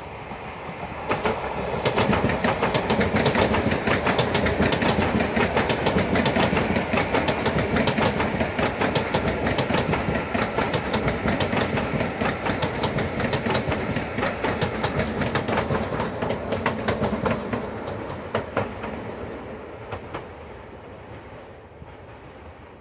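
Hyundai Rotem electric high-speed trainset passing at speed, a dense run of wheel clicks over the rail joints. It grows loud within the first two seconds, stays loud as the cars go by, and fades out over the last few seconds as the train pulls away.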